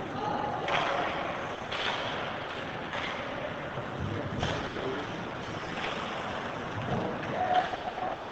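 Ice hockey play in a rink: a steady hiss of skates on the ice, broken by several sharp clacks of sticks on the puck, and a short shout near the end.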